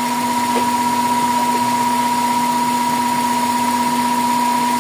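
Toyota 4A-FE 16-valve engine idling, with a steady high-pitched whistle over its running. This is the unusual noise that is still there, which the mechanic traces to the vacuum side: a bad PCV valve and a clogged vacuum passage.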